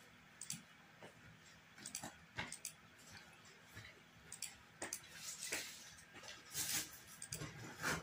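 Quick, irregular clicks as moves are played in a fast online bullet chess game, about a dozen in eight seconds, the loudest near the end.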